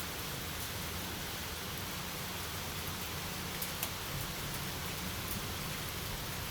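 Steady rain falling, an even hiss, with a couple of faint sharp ticks about halfway through.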